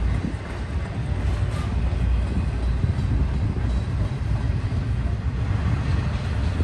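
Double-stack intermodal freight train rolling past: well cars loaded with containers make a steady low rumble of wheels on rail.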